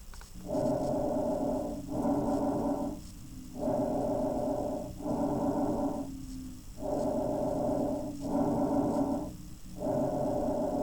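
Bronchovesicular breath sounds, a normal finding over the main bronchi. Each breath is an inhalation and an exhalation of about equal length with barely a gap between them, and a short pause separates one breath from the next. About four breath cycles are heard.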